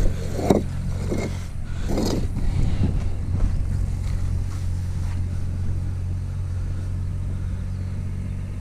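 A tractor engine drones steadily while it ploughs a nearby field. About half a second and two seconds in, there are two short scrapes and knocks as a concrete foundation block is lifted from the pallet and set down on the mortar.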